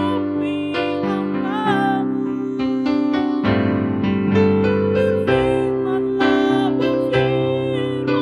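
A woman singing a slow Indonesian worship song into a microphone, accompanied by electric piano.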